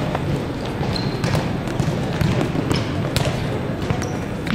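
Volleyballs being struck and bouncing: several sharp slaps at uneven intervals over the steady din of a large, echoing hall.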